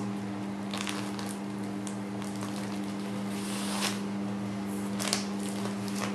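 Hands pulling and knotting twine around a plastic-cased roll of minced chicken, with several brief rustles of the plastic casing. A steady low hum runs underneath.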